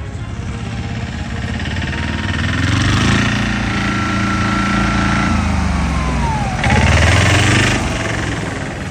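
Engine of a small diesel patpat farm vehicle working hard off-road, its pitch rising, then gliding down, with the loudest stretch about seven seconds in before it fades a little.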